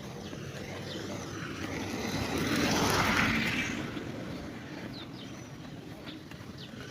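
A road vehicle passing close by, its tyre and engine noise rising to a peak about three seconds in, then fading away.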